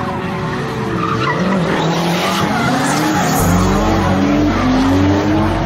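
Cars drifting through an intersection: engines revving in repeated rising pulls while the tyres squeal.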